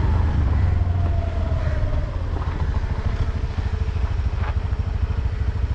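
Motor scooter engine running at low speed. Its note falls in pitch over the first couple of seconds as the throttle eases, then settles to a steady low hum.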